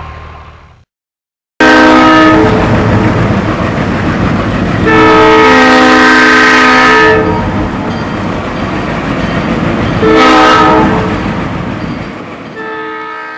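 Train air horn sounding four blasts, a short one, a long one of about two seconds, another short one and a last one that is cut off, over the loud rumble of a moving train. The rumble starts suddenly after a second of silence.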